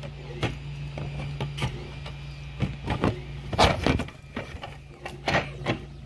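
Hard plastic 3D-printed case parts knocking and clicking against each other as they are handled and fitted together. There are scattered sharp knocks, loudest in a cluster a little past halfway, over a steady low hum.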